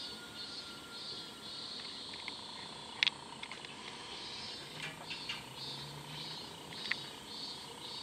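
Cicadas calling in the trees, a pulsing high-pitched chorus that swells and fades about twice a second. A few sharp clicks break in, the loudest about three seconds in.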